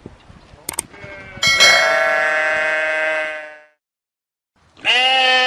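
Sheep bleating: one long bleat of about two seconds, then a shorter second bleat near the end that cuts off suddenly.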